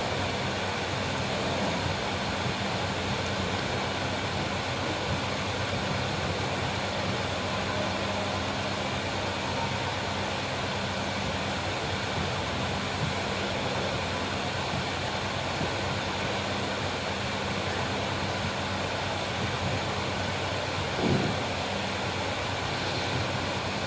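Steady background hum and hiss, even throughout, with a low steady hum under it; one faint short sound about 21 seconds in.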